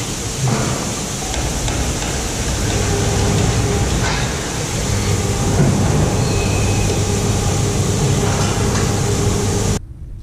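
Rotary milking parlour running: a steady machine drone and rumble with occasional knocks, cutting off abruptly near the end.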